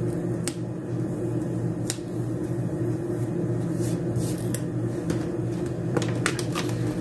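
A steady low mechanical hum, with a few sharp clicks as stickers are handled and pressed onto planner paper, and a quick run of clicks about six seconds in as a planner page is lifted to turn.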